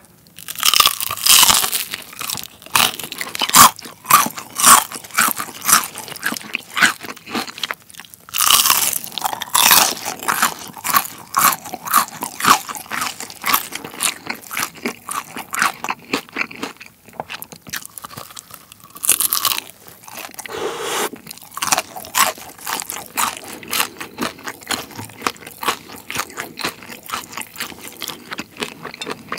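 Close-miked biting and chewing of crispy honey-glazed fried chicken (Kyochon Honey Combo): crisp crunching bites into the coating, then rapid crackly chewing. The loudest crunches come about a second in, around nine seconds and again around nineteen seconds.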